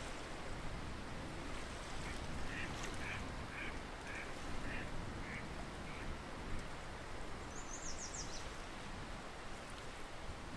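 Waterfowl calling: a string of short, repeated calls, about two a second, for a few seconds over a steady background hiss. Near eight seconds in, a small bird gives one quick high trill.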